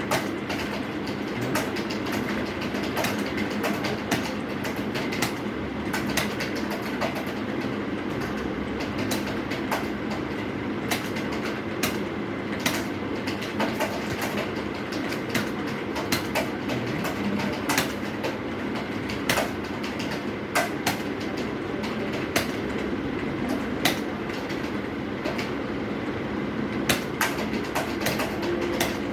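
Computer keyboard keys clicking at an irregular typing pace over a steady low rumble.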